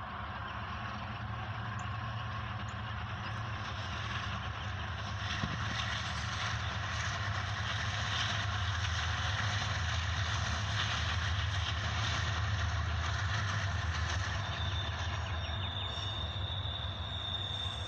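A freight train passing: the diesel locomotives' steady low engine hum and the rumble of wheels on rails swell to their loudest mid-way as the engines go by, then the double-stack cars roll past. A high, steady squeal comes in near the end.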